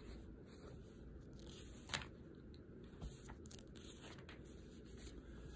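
Faint rustling of paper pages being handled, with a few soft clicks about two, three and three and a half seconds in.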